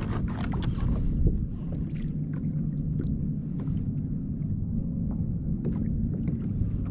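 Wind rumbling on an action camera's microphone while small waves lap against a plastic kayak hull, with scattered light ticks and splashes.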